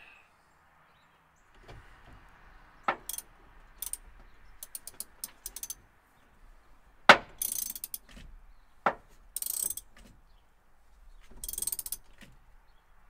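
Socket ratchet clicking in short bursts as nuts are tightened down on cable terminals, with a few sharp metallic clacks of the tools, the loudest about halfway through.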